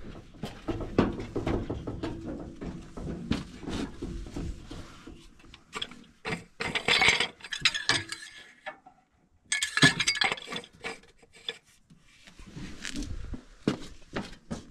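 Irregular knocks, clanks and clinks of handling on a John Deere self-propelled sprayer, with footsteps on its metal steps and platform and a plastic fill cap being worked off. No engine is running.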